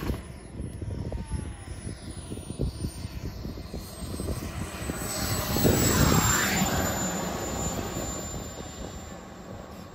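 Radio-controlled model jet on its landing pass. Its engine's high whine swells to a peak about six seconds in, then falls in pitch as the jet goes by and settles onto the runway.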